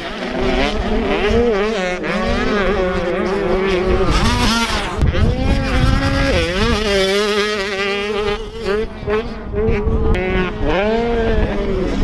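Two-stroke motocross bikes racing, their engines revving up and down through the gears, more than one at a time, with a rough wind rumble on the microphone underneath.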